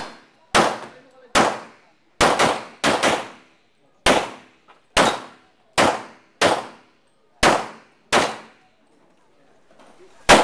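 Handgun shots fired in a rapid string, about a dozen, unevenly spaced with some quick pairs, each cracking sharply and ringing briefly. After a pause of about two seconds, one last shot comes near the end.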